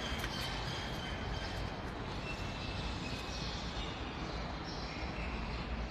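Steady low background noise with no distinct events, heaviest in the low end, with a faint high tone above it.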